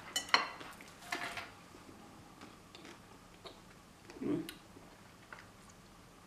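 Quiet eating: the chocolate shell of a Magnum ice cream bar cracks with a few sharp clicks as it is bitten in the first second or so, followed by faint chewing ticks and a short hummed 'mm' about four seconds in.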